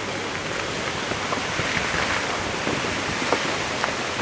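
Steady rushing roar of a volcanic fissure eruption, with a few sharp pops and cracks scattered through it.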